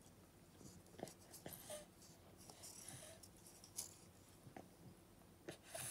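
Near silence, broken by a handful of faint, scattered clicks and soft taps from a toddler's fingers and a bowl as he eats.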